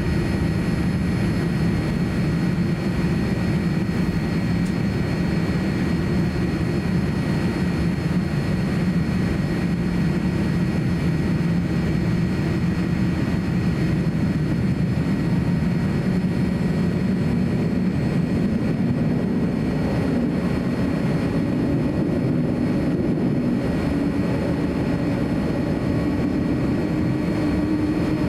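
Boeing 787-9 cabin noise on the ground before takeoff: a steady low rumble of the jet engines at idle and the air system, with faint steady whine tones above it. Near the end one tone rises slightly.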